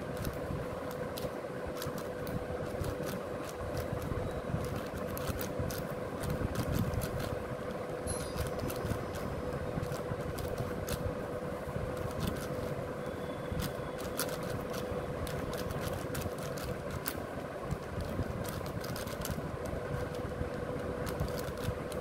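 Plastic 6x6 speed cube turned rapidly by hand: irregular clicks and scraping as its layers snap round, over a steady hum.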